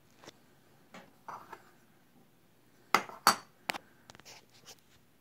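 A few sharp clinks and knocks of small hard objects being handled, the two loudest close together about three seconds in, followed by lighter ticks.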